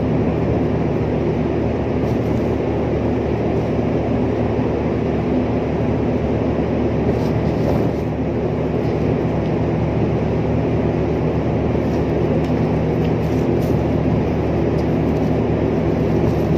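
Steady low drone of a large ship's machinery, a hum with several steady tones, with a few faint clicks.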